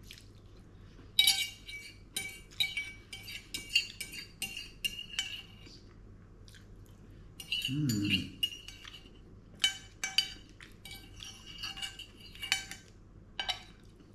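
Fork and knife clinking and scraping on a ceramic plate in quick runs of light, ringing taps, with a pause about halfway through, as the last food is gathered from the plate.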